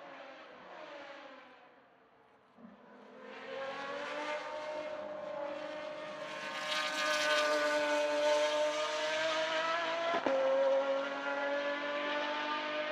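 Pagani Zonda track car's V12 accelerating hard toward and past, getting louder and higher as it comes closer, then dropping in pitch as it goes by. A quick upshift about ten seconds in, then it keeps pulling at high revs as it moves away.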